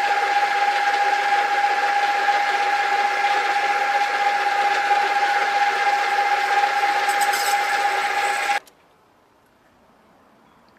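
A 40-year-old metal lathe running with its chuck spinning a brass workpiece, giving a steady motor-and-gear whine with one strong held tone. It cuts off abruptly about eight and a half seconds in, and only faint room noise follows.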